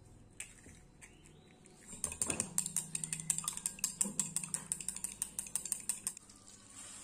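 Eggs being beaten with chopsticks in a glass mug: rapid clicking of the chopsticks against the glass, several strikes a second. It starts about two seconds in and stops about a second before the end.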